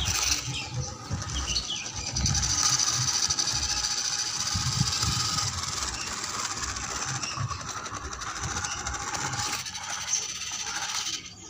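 Homemade RC truck driving, its small electric motor and gearbox whining steadily while the tyres grind over rough concrete and gravel. The sound drops away shortly before the end.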